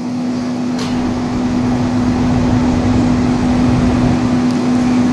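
Stationary EF65 electric locomotive with its auxiliary machinery running: a steady hum over an even, fan-like whoosh.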